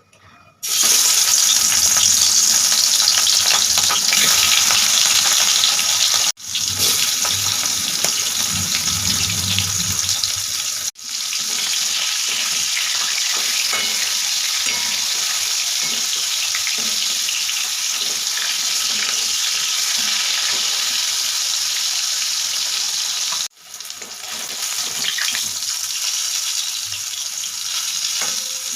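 Food sizzling as it fries in hot oil in a pan, a steady loud hiss that starts abruptly under a second in and breaks off for an instant three times.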